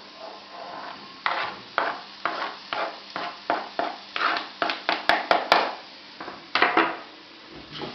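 Diced zucchini being scraped off a cutting board into a frying pan with a utensil: a run of short scrapes and taps against the board, about two a second, with three sharp clicks in quick succession about five seconds in.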